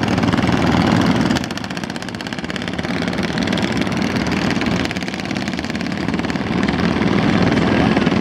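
Engines of cross-river sampan boats running, a steady engine drone. It drops in level about a second and a half in and swells again near the end.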